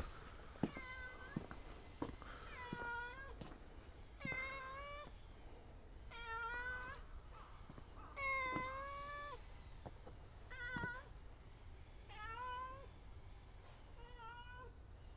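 A cat meowing about eight times, roughly every two seconds. Each meow lasts under a second, and the longest and loudest comes a little past the middle.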